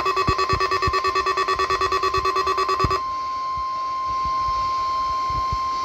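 Weather radio alarm beeping rapidly, about ten beeps a second. About three seconds in it gives way to the NOAA Weather Radio warning alarm tone, one steady pitch held to the end: the attention signal of a weekly alarm test.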